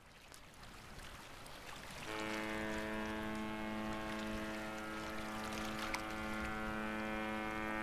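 Cruise ship's horn sounding one long, steady blast that starts about two seconds in and is still going at the end, over a low background of wind and water noise.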